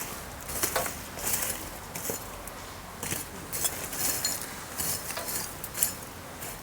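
Bamboo bonfire crackling, with irregular sharp pops and ticks over a faint hiss.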